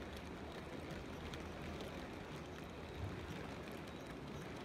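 Model railway goods train of loaded coal wagons running past: a steady low rumble of the wheels rolling on the track, with faint scattered clicks.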